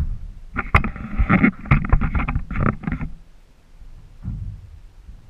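Knocks and clattering on the hull of an aluminium jon boat as someone moves about and shifts his weight in it. There are two sharp clicks near the start, then a run of bumps for a couple of seconds, then it goes quieter.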